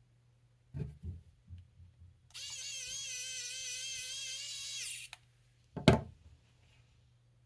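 Small electric drill-driver motor running steadily for about two and a half seconds, likely a cordless screwdriver used while reassembling a chainsaw carburetor. It is preceded by a few light knocks and followed by one sharp knock, the loudest sound here.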